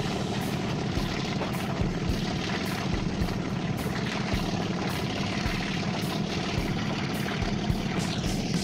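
Passenger train under way, heard from an open carriage window: a steady rumble from the diesel locomotive working hard and the wheels on the track, mixed with rushing wind, with scattered short knocks.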